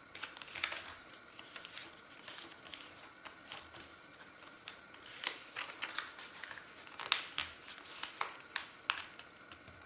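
A sheet of paper being folded by hand and its creases pressed down: faint, irregular crackles and rustles, busiest and sharpest in the second half.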